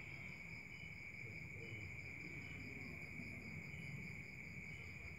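Crickets chirring in a steady, continuous high trill, with a second, pulsing trill above it and short chirps now and then.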